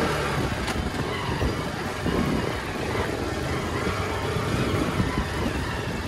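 A vehicle on the move: steady engine and road noise, with an even rumble and hiss throughout.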